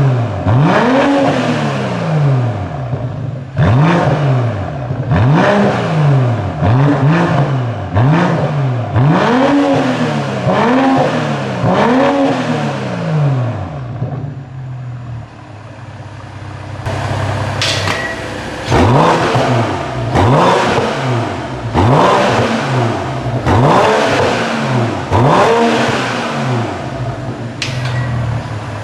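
BMW M440i's B58 turbocharged 3.0-litre straight-six, fitted with an Akrapovič four-pipe exhaust and HJS downpipe, free-revved while standing: a run of quick blips, each rising and falling in pitch, then back to idle for a few seconds in the middle before another run of blips. A few sharp cracks sound between the later revs.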